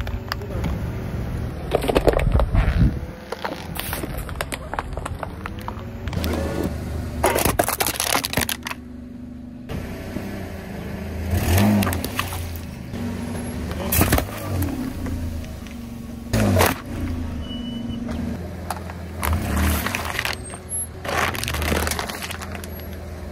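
A car's engine running low and steady while its tyres roll over and crush objects, with a crunch or crack every two to three seconds.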